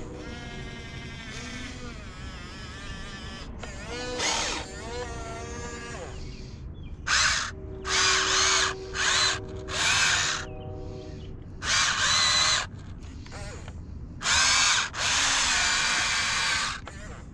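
Huina 1592 RC excavator's small electric gear motors whining as the digging arm and bucket move. About seven seconds in they start coming in short, loud bursts, several in a row with brief pauses between them, the last one longer.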